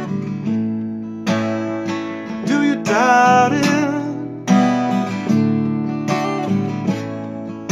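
Seagull acoustic guitar strummed in a steady rhythm, with a Hohner harmonica playing a bending melody over it, loudest about three seconds in.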